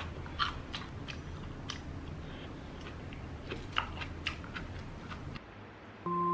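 A person chewing a mouthful of rice noodles and lettuce salad, with irregular soft clicks of eating over a steady low hum. Near the end it cuts to light mallet-percussion music.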